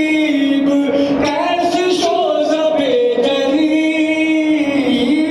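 A single voice chanting a slow mourning lament (noha) in long held notes that waver gently in pitch, with short breaks between phrases.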